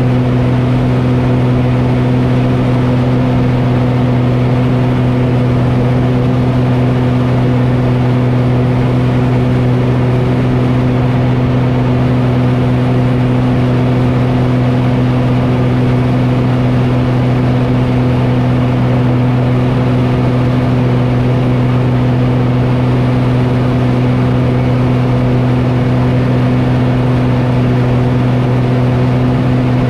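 A steady low mechanical hum at one unchanging pitch with its overtones, like a motor running at constant speed.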